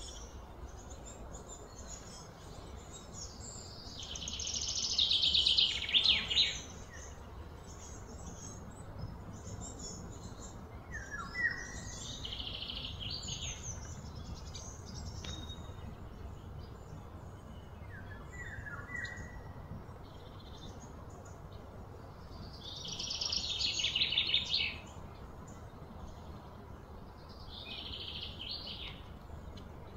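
Outdoor wildlife calls: four high, pulsing calls of one to three seconds each swell and then cut off, with short falling bird chirps between them, over a steady low hum.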